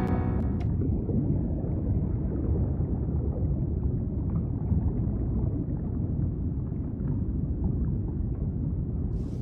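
Muffled underwater ambience: a steady low rumble and gurgle of water. A few notes of music end in the first second.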